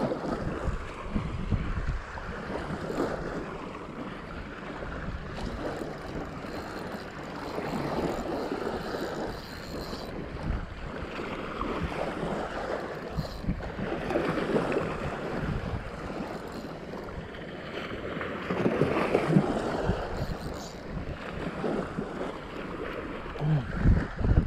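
Wind buffeting the microphone over surf washing on the beach. It swells and eases in gusts, with a few low thumps near the start and again near the end.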